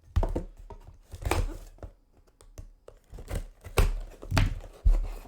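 Trading cards and their packaging being handled: a run of rustling and crinkling strokes with several sharp knocks, the loudest in the second half.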